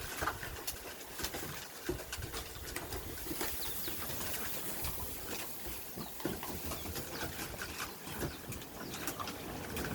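A litter of Mastadane puppies eating dry kibble from a shared pan: many quick, scattered crunches and clicks.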